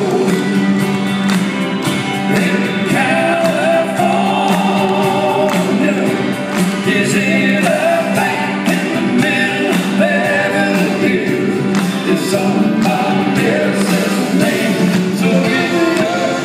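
Live country band playing: male voices singing in harmony over electric guitars, bass, drums and keyboard, heard from the audience in a large hall.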